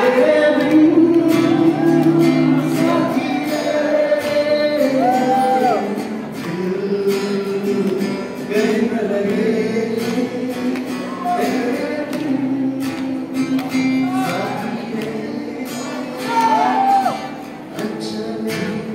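A man singing a slow melody live to acoustic guitar accompaniment.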